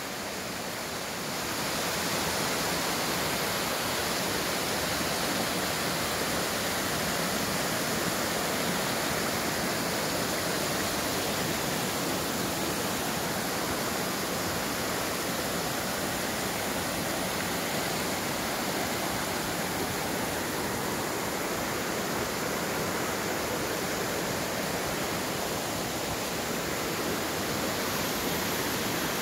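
Mountain stream rushing over granite bedrock in small cascades: a steady rush of water that grows a little louder about a second and a half in.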